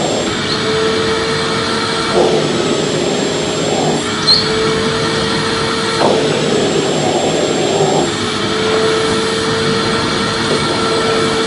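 Vacuum cleaner running steadily: a loud rush of air with a constant whine, swelling briefly every couple of seconds.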